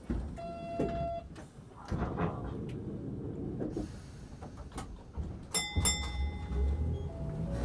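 Inside a Toden Arakawa Line electric tram standing at a stop: a short electronic beep near the start, then a bright chime about five and a half seconds in. After the chime, the low rumble of the tram's motors builds as it starts to pull away.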